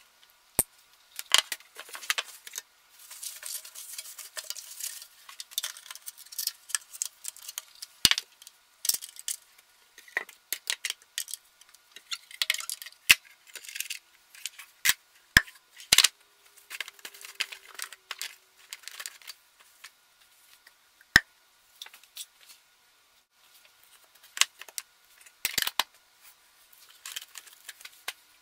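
Plastic parts of a Drinkwell pet water fountain clicking and clattering as they are handled and fitted back together: a string of sharp knocks and clacks with rustling in between.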